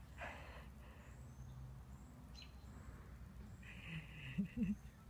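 Backyard ambience: faint, distant bird chirps over a low, steady rumble, with some faint rustling. Near the end there is a brief, low hummed voice sound.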